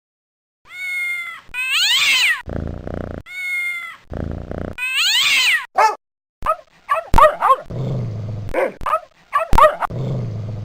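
Animal-cry sound effects: a pitched call that slides up and down, followed by a low rasping growl, the pair played twice. Then comes a quick run of short cries that fall in pitch.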